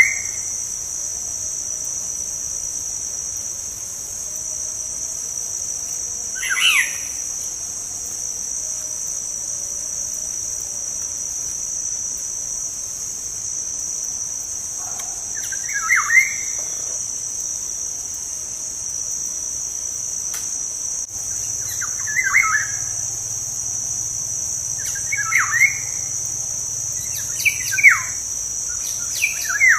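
Black-naped oriole (kepodang) giving short, sweeping calls every few seconds, coming closer together in the second half, over a steady high-pitched drone of crickets.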